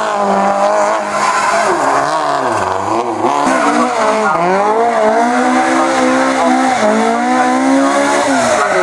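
Rally car engines revved hard and rising and falling in pitch as the cars spin doughnuts, with tyre squeal. First a Subaru Impreza WRC's turbocharged flat-four, then, a few seconds in, a Mk2 Ford Escort rally car.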